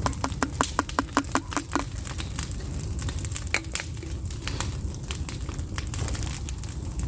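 A fast, even run of clicks for the first two seconds, then irregular crackling and popping over a steady low rumble.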